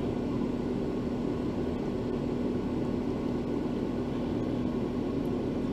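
Steady hum of a small electric motor: an even whir with one constant low tone, unchanging throughout.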